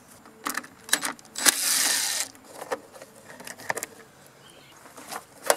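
Scattered clicks and knocks of a plastic flywheel screen being unscrewed and lifted off a Briggs & Stratton lawn mower engine with a cordless drill, with one short noisy rush a little under two seconds in.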